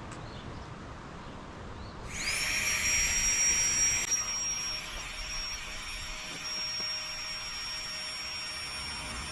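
Small electric air pump switched on about two seconds in, its motor spinning up to a steady high whine. It is louder for its first couple of seconds, then runs on steadily.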